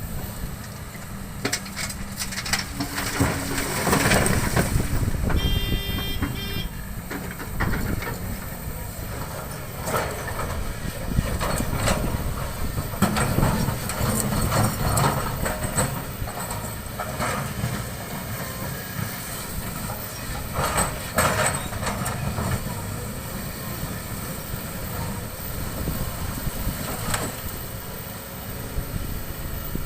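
Excavator engine running steadily under load while it shifts stones, with repeated knocks and clattering of rock and metal throughout. A brief high tone sounds about six seconds in.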